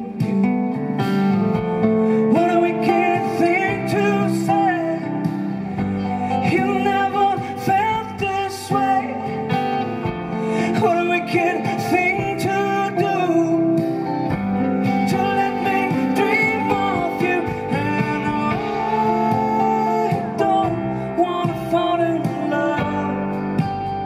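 Live band music: a man singing a slow song over strummed acoustic guitar, with an upright double bass underneath.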